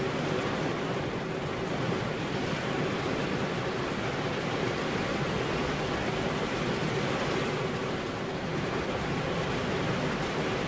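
Steady rain falling, an even rushing hiss with no single drops or breaks standing out.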